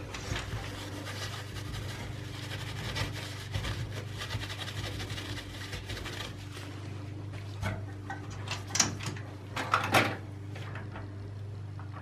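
Paper napkin rubbing and rustling as old thermal paste is wiped off a CPU's metal lid, with a few louder handling sounds near the end, over a steady low hum.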